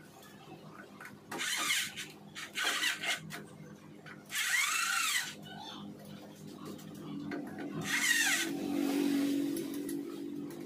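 Screwdriver scraping and squeaking against wiring terminal screws in a generator control panel, in four short bursts, over a steady low hum.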